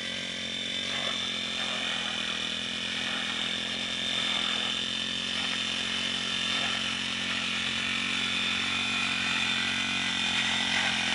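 Small-engine brush cutter running steadily at working speed, a high engine note with little change in pitch.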